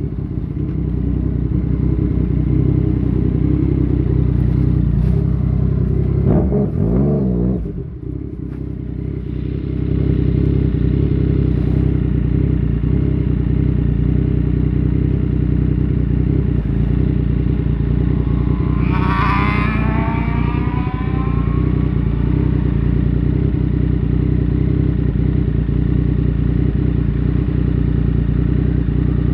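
Yamaha MT-09 Tracer's three-cylinder engine running through a Fuse Racing aftermarket exhaust while riding. The level dips briefly about a quarter of the way in, as the throttle closes and the pitch sweeps, then the engine runs steadily again. There is a short higher-pitched sweep about two-thirds of the way through.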